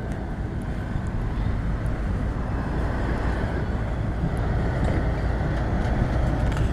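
Steady low rumble of trucks and trailers driving past in a continuous stream, growing slightly louder.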